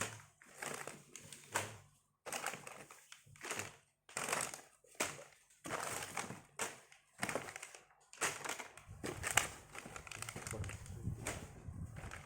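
Plastic packaging being handled, crinkling and crunching in irregular bursts with short pauses between.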